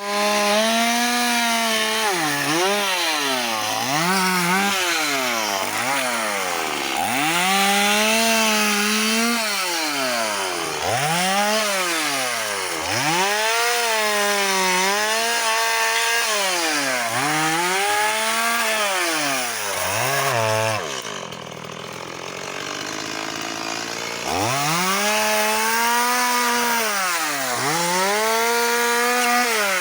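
Chainsaw cutting firewood, its engine pitch repeatedly rising and then sagging as the chain bites into the wood. About 21 seconds in it drops to a quieter idle for a few seconds, then revs up and cuts again.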